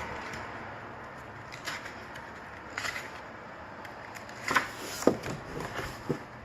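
Handling noise from unboxed merchandise: a scatter of short clicks and rustles, loudest around the middle, over a faint steady hiss.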